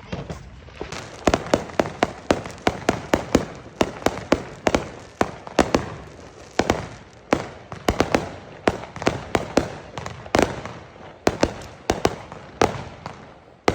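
Fireworks going off in a rapid, irregular string of sharp cracks and bangs, several a second, some louder than others with a short echo after them.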